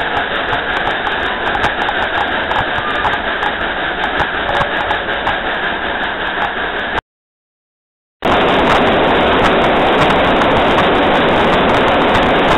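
Steam locomotive No. 192 running along the track, heard from on board: a steady clattering running noise with many small ticks. About seven seconds in, the sound cuts to silence for about a second. It comes back as a louder, even rush of moving air and running noise at the front of the moving locomotive.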